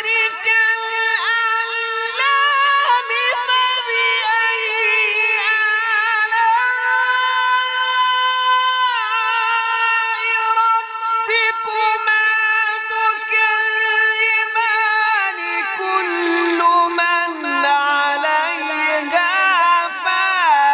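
A male qari reciting the Quran in a melodic, ornamented style: long held high notes with small turns, the pitch stepping down lower over the last few seconds.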